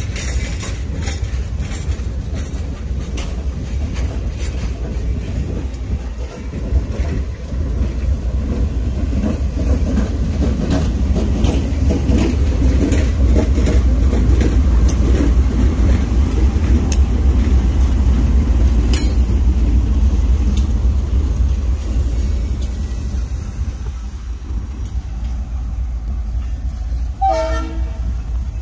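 Passenger train rolling past at a grade crossing: the passenger cars' wheels clatter over the rail joints, then the trailing diesel locomotive goes by, its engine rumble loudest around the middle. Near the end there is a brief horn toot.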